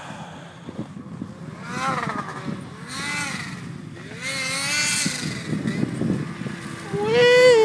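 Turbocharged Ski-Doo Summit XRS 800 snowmobile two-stroke, fitted with a Garrett ball-bearing turbo, riding toward the listener, its engine pitch rising and falling as the throttle is worked. About seven seconds in, the engine revs up sharply and grows loud as the sled comes close.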